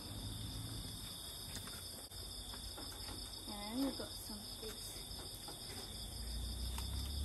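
Night chorus of crickets: steady, high-pitched trilling from several insects at once, with a short hummed voice sound a little past three seconds in.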